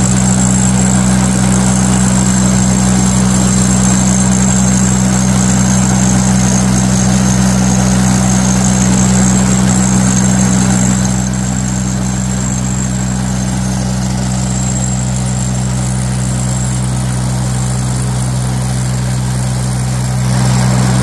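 Construction machinery engine running steadily with a constant low drone. It drops a little in loudness about halfway through and rises again near the end.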